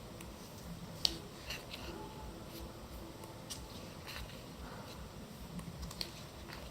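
Faint handling of paper and card items from a magazine set: scattered light taps and clicks, with a sharper click about a second in.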